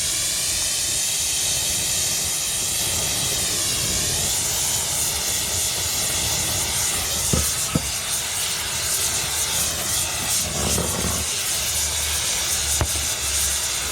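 Gas torch blowing with a steady, loud hiss while heating metal. A couple of light knocks of metal come partway through.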